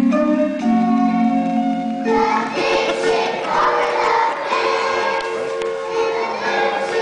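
A group of young children singing together to an instrumental accompaniment; the accompaniment plays alone for about two seconds before the voices come in.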